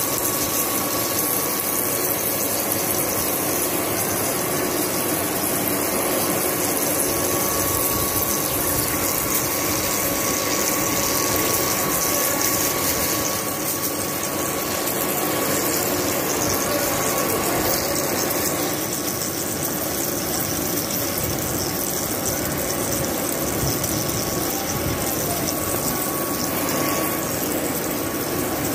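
Metal lathe taking a 25 mm turning cut on a large spinning workpiece, the tool peeling off curled chips under a stream of liquid coolant. A steady machining noise with a faint high whine.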